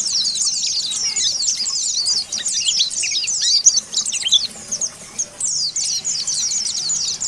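White-eye (pleci, Zosterops) singing a fast, chattering song of high, quickly falling chirps strung close together, with a short lull a little under five seconds in before the chirping picks up again.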